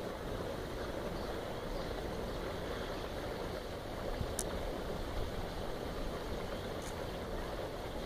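Steam escaping from a vent in the ground with a steady rushing hiss.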